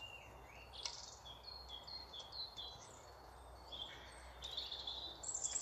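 A small bird singing outdoors, a quick two-note phrase repeated over and over, high note then lower note, over a faint background hum. A light tap sounds about a second in.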